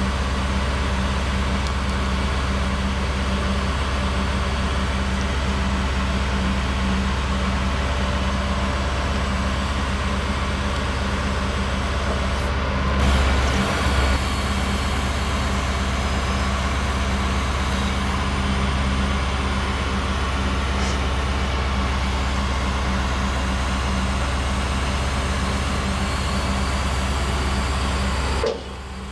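Heavy truck diesel engine running steadily with a low, even drone, a brief louder knock about halfway through, and a sudden drop in level near the end.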